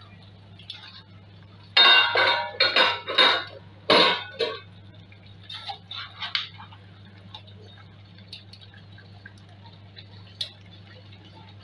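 Metal spoon scraping and knocking against a stainless steel pot while thick egusi soup is stirred. A quick run of about six loud scrapes comes about two seconds in, followed by a few lighter taps and scattered ticks, over a steady low hum.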